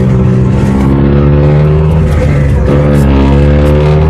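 Engine of a Beccar Urbus city bus running loudly. Its pitch shifts, dipping and then climbing back about two-thirds of the way in.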